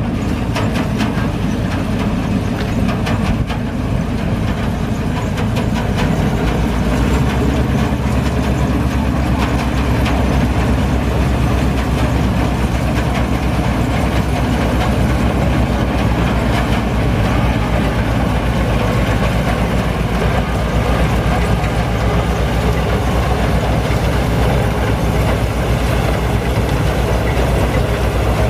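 Combine harvester's diesel engine running steadily while it harvests, its low drone getting louder about seven seconds in.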